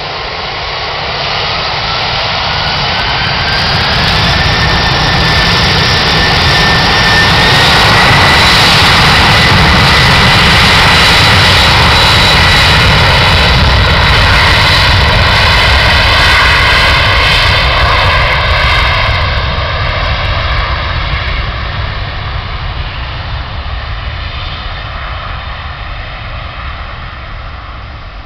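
Boeing 747-400's jet engines spooling up to takeoff power at the start of the takeoff roll: a whine climbs steadily in pitch over the first several seconds under loud jet noise. The noise peaks as the engines pass close by, then fades as the jet accelerates away down the runway.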